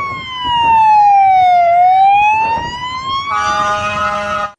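Fire engine siren wailing: one slow slide down in pitch, then back up. About three seconds in, a second, steady blaring tone joins it, and both cut off sharply near the end.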